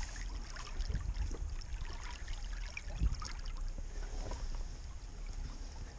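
Light splashing and trickling of river water around a hand holding a steelhead in the water at a boat's side. A single soft knock about three seconds in.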